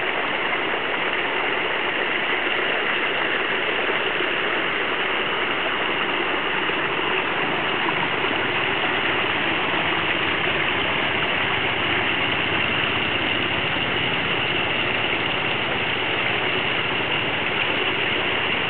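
Water rushing fast along a narrow channel, a steady, even rush with no breaks.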